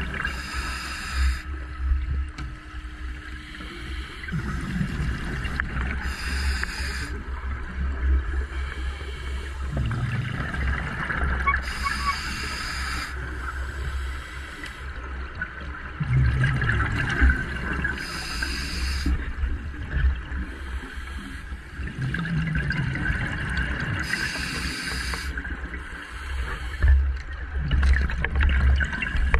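Scuba diver breathing through a regulator underwater: a short hiss with each inhale and a gurgle of exhaled bubbles, about every six seconds, over a steady low rumble.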